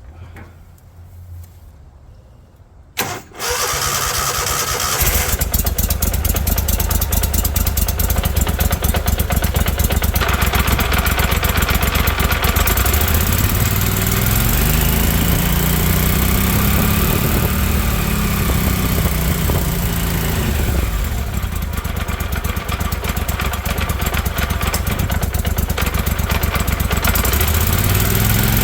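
Surface-drive mud motor's engine starting about three seconds in and catching at once, then running with its new propeller spinning. It is revved up and back down once in the middle and starts rising again near the end.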